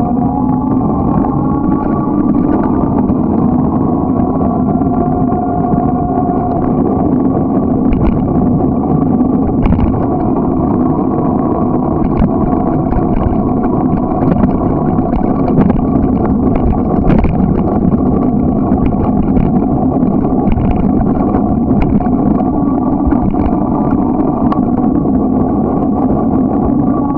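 Steady running noise of a bike ride along an asphalt path: a continuous rumble with a steady hum, and scattered small knocks as the bike goes over cracks in the pavement.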